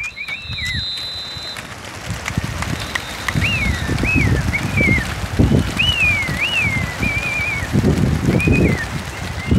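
A released flock of racing pigeons taking off from their transport crates: a mass of flapping wings swells in from about three seconds in. Whistled notes rising and falling run over it.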